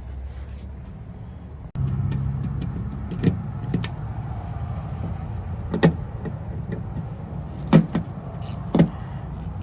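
Several sharp clicks and snaps of a plastic trim panel being pried open, over a steady low hum.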